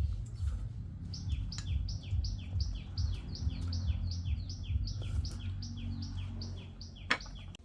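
A bird calling in a fast, even series of short descending chirps, each high note answered by a lower one, about three a second, over a low rumble. A sharp click sounds near the end.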